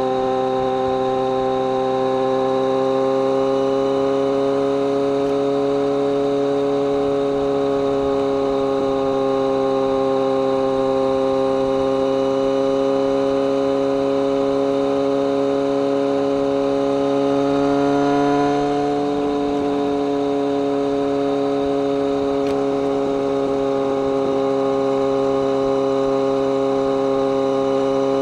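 BMW K1200R's inline-four engine running at a steady cruising speed, an even, droning exhaust note. About two-thirds of the way through, the pitch and loudness rise briefly, then ease back.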